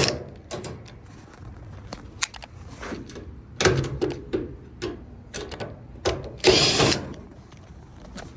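Power drill-driver spinning out screws from a Samsung dryer's cabinet panels in two short runs, about three and a half and six and a half seconds in, with small clicks and clatter of the screws and panel being handled in between.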